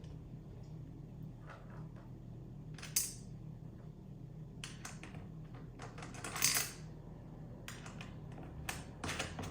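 Small metal hardware being handled while assembling cart parts: bolts, washers and nuts clinking and clicking as they are fitted loosely by hand, in scattered light clinks with a louder clatter about six and a half seconds in.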